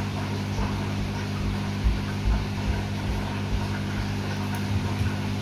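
A steady low machine hum, like a fan or appliance motor, with a few soft low thumps about two seconds in.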